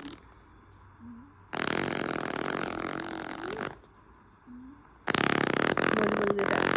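A baby blowing raspberries: two long, buzzing, fart-like lip sounds, each about two seconds, the second starting about five seconds in.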